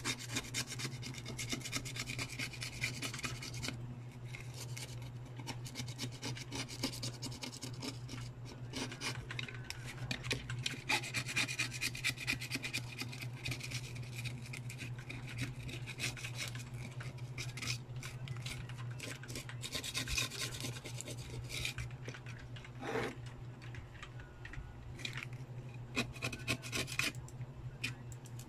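A small hand tool scraping and rubbing along the corroded metal midframe of a water-damaged Vivo Y91 phone, scrubbing off corrosion in quick, continuous strokes. A steady low hum runs underneath.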